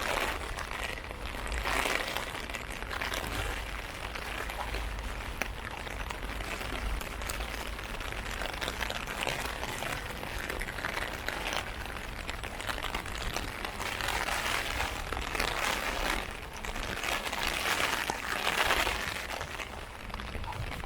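Heavy rain hitting an umbrella overhead, a dense crackle of drops that swells louder several times, over a steady low rumble.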